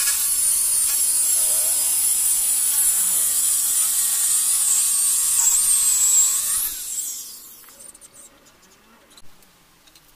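Handheld electric circular saw ripping a teak beam lengthwise: a loud high whine of blade and motor, the pitch dipping now and then as the blade bites. About seven seconds in the cut ends and the saw winds down, leaving quiet with one small click.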